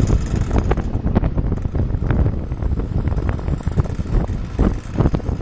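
Wind buffeting the microphone over the low rumble of a moving vehicle, with frequent irregular knocks and rattles from riding over the road.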